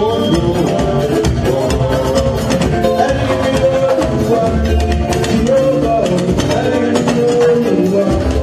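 Music playing continuously: a melody line over a bass and a steady beat.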